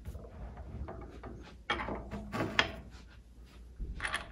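Yost 5-inch cast-iron swivel bench vise being nudged and slid on a wooden workbench top: a few light knocks and scrapes as its base is lined up over the drilled bolt holes.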